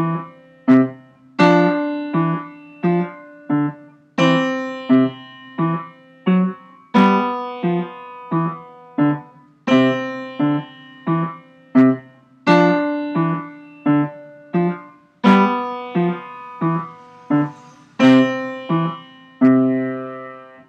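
Piano playing a simple beginner duet: the accompaniment strikes notes on every beat at a slow, steady pulse, while the other part holds one note for four beats at a time, so a stronger note sounds every fourth beat. The playing stops at the end.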